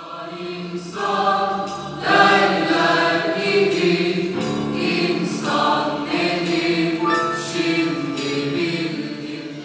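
A choir singing slow, sustained chords, moving to a new chord every second or so.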